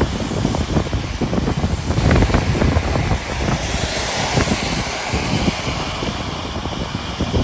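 Wind buffeting the microphone over the rumble of a car driving along a wet road, with a hiss of tyres on wet tarmac swelling about four seconds in as another car passes close by.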